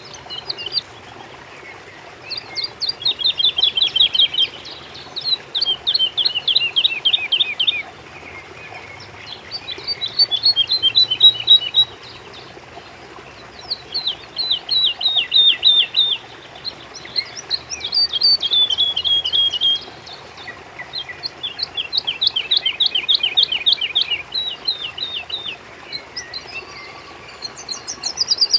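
A songbird singing the same song over and over: a quick run of short notes sweeping downward, lasting about two seconds and repeated every three to four seconds.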